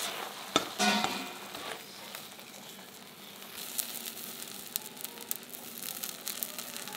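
Blue slime sizzling and crackling in a hot non-stick pan, with a wooden spatula scraping against it about a second in. Small sharp crackles come thicker from about halfway.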